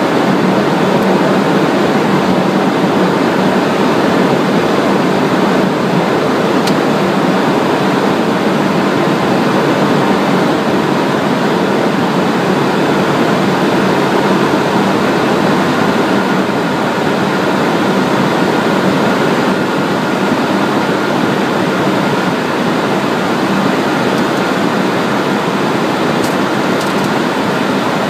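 Steady cockpit noise of a Cessna Citation Encore business jet on approach: an even rush of air over the airframe mixed with the hum of its turbofan engines.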